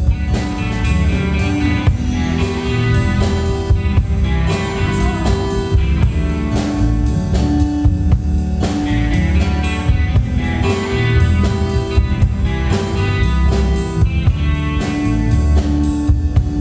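Instrumental band music, no vocals: a drum kit keeping a steady beat under guitar and bass chords.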